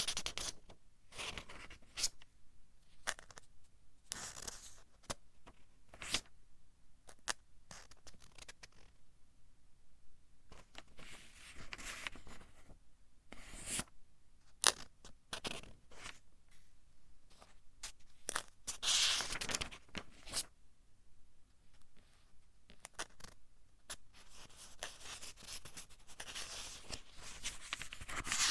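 Pages of a thin-papered book being turned one after another: short paper rustles and crisp flicks every second or two, with a longer rustle about two thirds of the way through.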